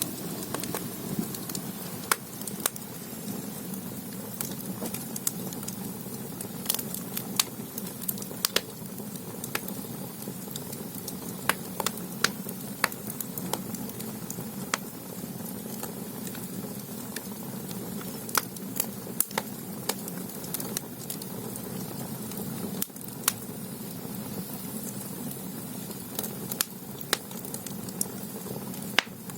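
Firewood burning in the firebox of a Korean ondol underfloor-heating stove: a steady low rumble of the fire with sharp crackles and pops at irregular intervals, about one every second or so.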